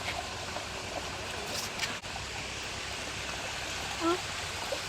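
Steady rush of flowing water from a small stream or spring, with a short pitched sound about four seconds in.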